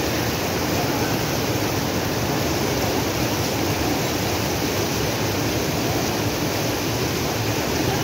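Steady rushing of a shallow mountain river pouring over rock ledges in small rapids, with no pauses or changes.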